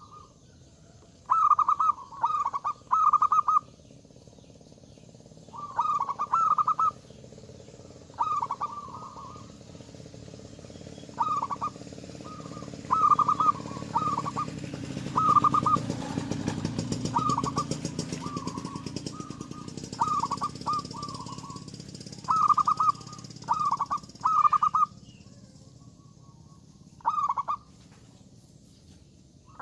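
Zebra dove (perkutut) cooing: short, rapid, rolling call phrases repeated in groups every second or so, with brief pauses. A low rumble swells and fades in the middle.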